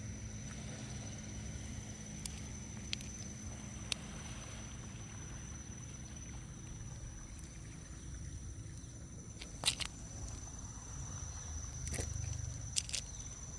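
Outdoor ambience: a steady low rumble with a thin, steady high-pitched whine over it, broken by a few sharp clicks, the loudest pair about ten seconds in and another near the end.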